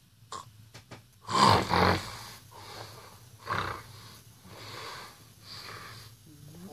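A person snoring in irregular, noisy breaths: a loud snore about a second and a half in, another at about three and a half seconds, then two softer ones.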